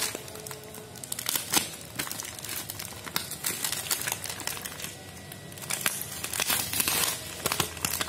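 Plastic packaging crinkling and crackling as it is handled and slit open with a snap-off utility knife: a run of irregular crackles, busiest about a second and a half in and again from about six to seven and a half seconds in.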